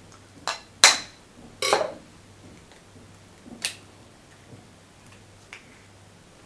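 Eggshells tapped and cracked open with a knife blade. There are a few sharp taps and a crack of shell in the first two seconds, one more tap near the middle, and a faint click later.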